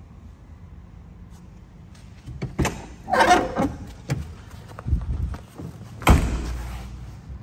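Car doors of a 1983 BMW 733i sedan being handled: latch and handle clicks and a short rattling creak, low thumps, then a solid door thud about six seconds in that is the loudest sound.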